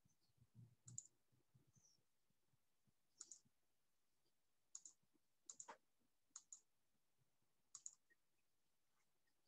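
Near silence broken by faint computer mouse clicks, about six times, several coming as quick double clicks.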